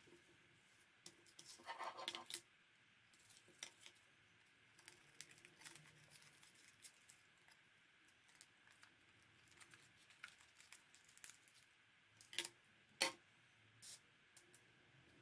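Tissue paper rustling and crinkling as it is handled and folded on a wooden table, with scattered light taps and a few sharper clicks near the end.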